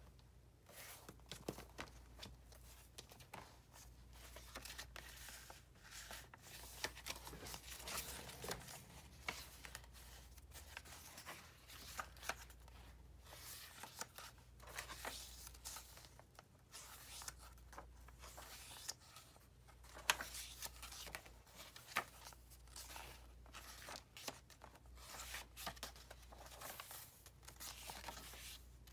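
Paper pages of a handmade journal being turned one after another: irregular rustling and crinkling of coffee- and tea-stained paper with small taps and clicks, over a faint steady low hum.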